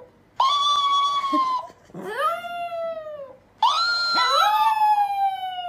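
Chihuahua howling: three long howls, each gliding up, holding, then sliding down in pitch. The third is the longest.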